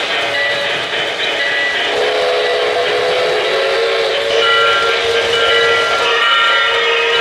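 O-gauge model steam locomotives rolling their freight trains along three-rail track, with an electronic steam whistle from a locomotive's sound system giving short toots and then a long, held multi-tone blast from about two seconds in.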